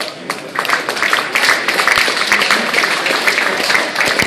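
Audience applauding: a dense patter of many hands clapping that starts right at the beginning and quickly fills out.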